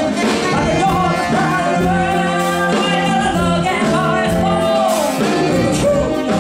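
A live band playing a song, with a woman singing lead over electric bass, keyboards and drums, including several long held notes.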